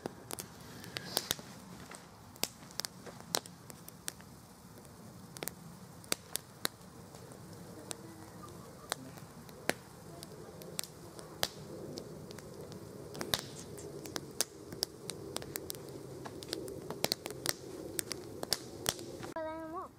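Wood campfire of split kindling crackling, with irregular sharp pops and snaps over a soft steady rush of burning that grows a little louder towards the end.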